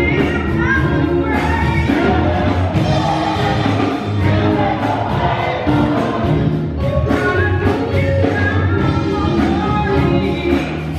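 Gospel choir singing live, led by a woman singing into a handheld microphone.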